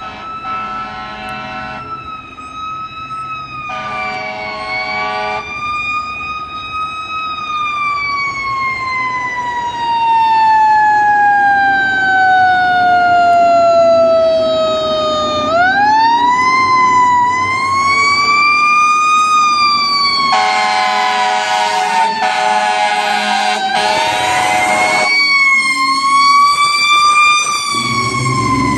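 Fire ladder truck responding with its siren wailing: a slow rising and falling tone that sweeps down gradually, then winds back up sharply about halfway through. Several long steady air-horn blasts cut in over it, one around two-thirds of the way through, and the sound grows louder as the truck approaches, with its engine heard close as it passes near the end.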